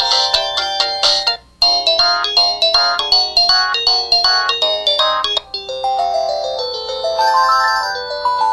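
Samsung SCH-V490 mobile phone playing its built-in ringtone melodies, synthesized bell-like tunes with several notes sounding at once. One tune cuts off about a second and a half in and the next starts straight after. The tune changes again about five and a half seconds in.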